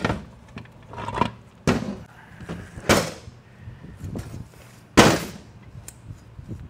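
Metal clanks and knocks as internal parts of a Ford 4R70W automatic transmission, a geared drum assembly among them, are pulled from the case and set down on the workbench. About five sharp strikes, the loudest about five seconds in.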